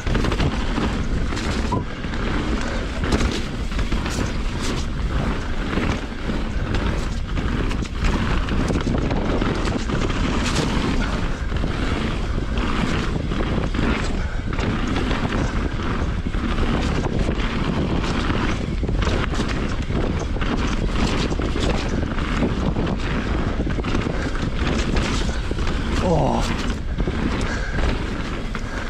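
Full-suspension mountain bike (2020 Rocky Mountain Instinct BC) descending a rough trail: the low rumble of tyres on dirt and wind buffeting the camera microphone, with constant clattering and knocking as the bike hits roots and rocks. A brief wavering squeal comes about 26 seconds in.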